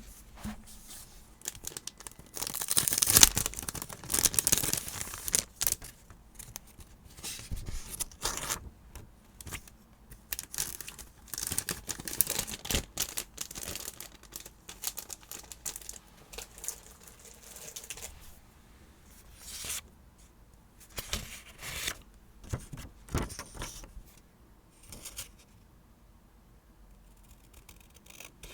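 Paper decorating materials being handled: stickers or tape peeled and torn, with crinkling paper rustles in irregular bursts, loudest a few seconds in and thinning out near the end.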